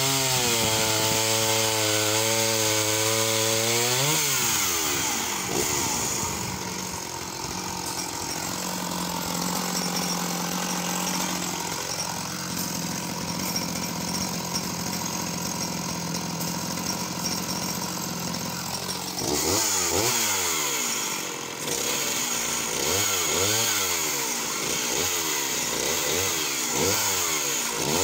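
Sachs Dolmar 111 52cc two-stroke chainsaw running at high revs, dropping to idle about four seconds in. It idles for a while, then is blipped up and down repeatedly before going back to full throttle near the end.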